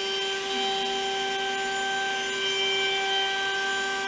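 CNC router spindle running with a steady whine while a square-cornered router bit cuts a roughing pass through padauk hardwood.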